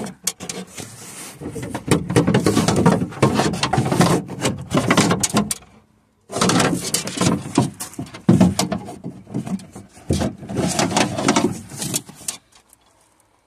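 A car's manual window regulator clattering and scraping against the metal inner door shell as it is manoeuvred out through the access hole. The rattling knocks come in two stretches, broken by a short silence about six seconds in, and stop near the end.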